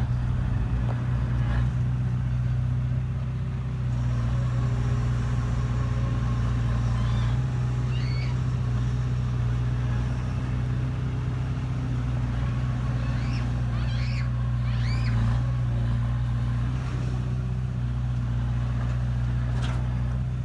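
Heavy diesel engine of earthmoving machinery running steadily with an even, low hum.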